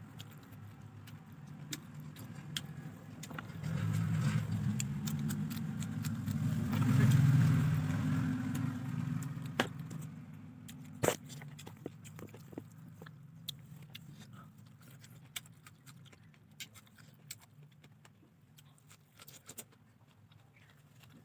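Scattered light clicks of a spoon against a food container while eating, over a low rumble that swells about four seconds in and fades by about ten seconds.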